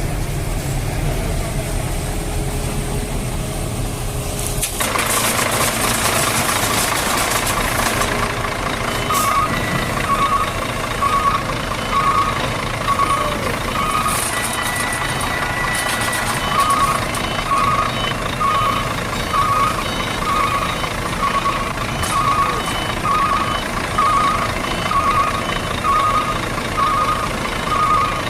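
Toy dump truck's electronic sound effect: a low engine rumble, then, from about nine seconds in, a steady run of short reversing beeps over a hiss.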